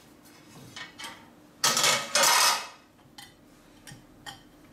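Plates being handled in a kitchen: a few light knocks and clicks, and a rustling scrape of about a second near the middle.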